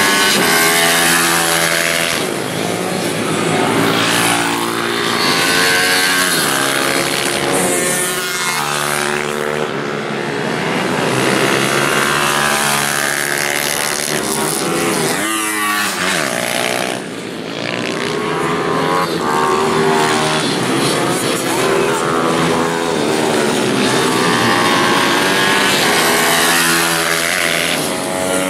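Small single-cylinder pitbike and Ohvale minimoto race bikes at full throttle on a racing lap, several engines overlapping as the bikes pass one after another. The engine pitch climbs, drops at each gear change, and falls away as each bike goes by.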